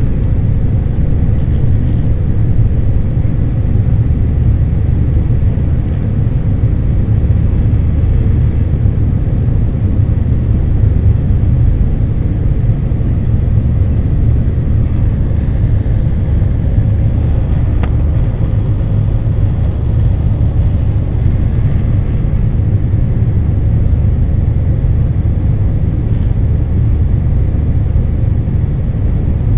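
Steady low rumble of an Airbus A320's jet engines and airflow heard from inside the passenger cabin, loud and unchanging.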